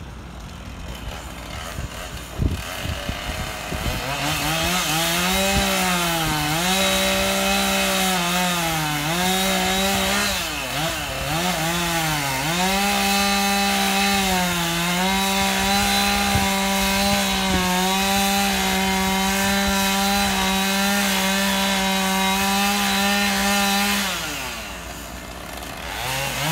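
Two-stroke chainsaw cutting through thick wooden bridge runners at high revs. It starts quieter, then its pitch dips and recovers several times as the chain works in the cut. It holds steady for about ten seconds, falls away near the end, then revs briefly again.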